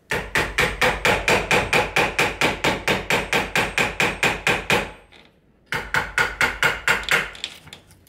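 Claw hammer tapping rapidly on the chisel of a Ryobi door latch installation tool, about five strikes a second, cutting the latch recess into a wooden interior door's edge. The run lasts about five seconds, then after a short pause comes a second burst of about a second and a half.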